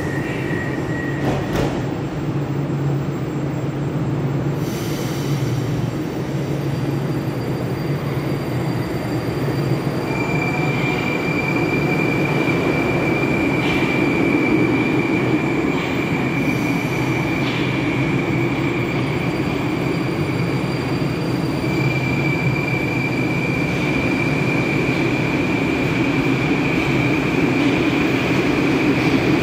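Moscow Metro 81-765.4/766.4/767.4 "Moskva-2019" trains in a station: the steady rumble of a train running along the platform, with a few short clicks. A high steady whine sets in about ten seconds in and runs on to the end, with one short break.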